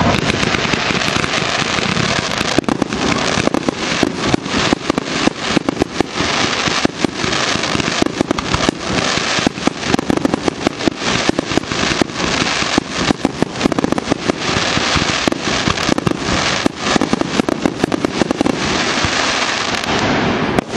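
Fireworks going off: a dense, rapid run of sharp cracks and pops over a steady hiss of burning effects, thinning out near the end.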